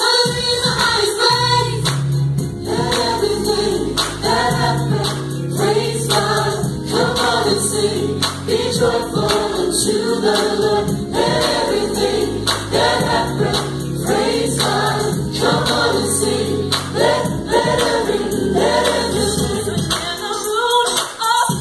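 Live contemporary worship music: a group of singers leading a song over a band with sustained bass notes, with a tambourine.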